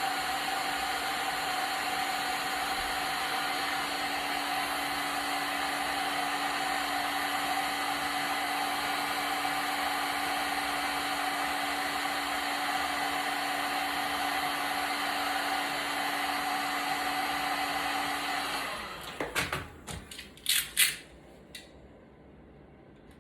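A small electric blower motor running steadily with a constant hum, switched off about 18 seconds in, then a few sharp clicks and knocks.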